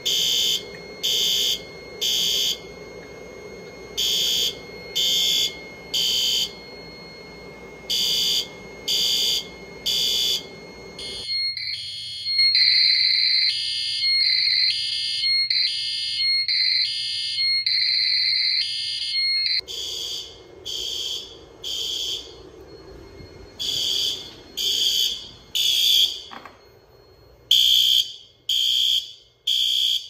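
System Sensor horn strobe sounding in the temporal-three evacuation pattern: three short, loud horn blasts about a second apart, a pause, then again, on a fire alarm panel in alarm. The horn has a somewhat raspy tone, which the owner puts down to it being a first-generation unit. For about eight seconds in the middle the same alarm comes through a phone's speaker, thin and tinny.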